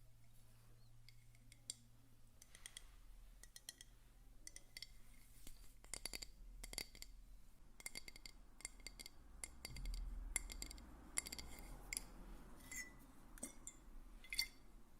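Close-miked ASMR tapping and clicking on a hard object: soft, irregular taps, each with a brief high ring, coming more often from about halfway through.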